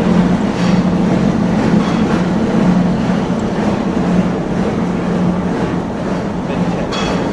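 Metal lathe running steadily during a boring operation: a constant machine hum under a wash of cutting and motor noise, with a few faint light clinks.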